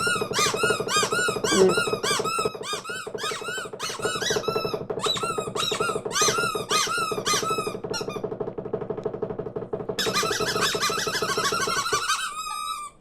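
A flock of cartoon birds chattering: rapid, overlapping squeaky chirps and peeps over a steady murmur of the flock. The chirping cuts off abruptly near the end.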